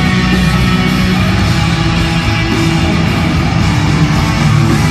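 Loud live band music from a pop concert: an instrumental passage with no singing.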